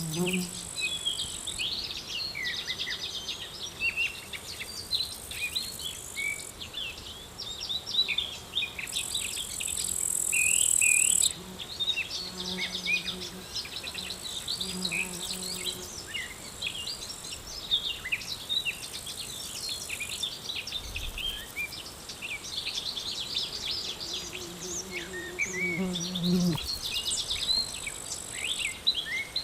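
Summer field ambience: many small birds chirping, with insects trilling in high, fast-pulsed bursts that are loudest about nine to eleven seconds in. A honeybee buzzes by a few times, longest near the end.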